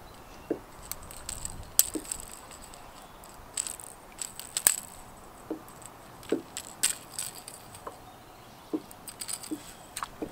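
Irregular light metallic clicks and rattles as a fishing lure's treble hooks are worked out of a bass's mouth by hand, with a few soft knocks from the fish being handled.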